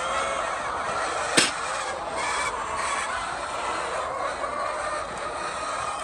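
A crowded flock of laying hens clucking and calling without a break, many birds at once, with a single sharp click about a second and a half in.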